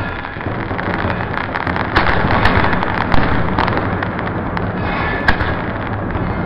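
Aerial fireworks going off: a continuous din of bursts and crackle, with a few sharp cracks standing out about two, three and five seconds in.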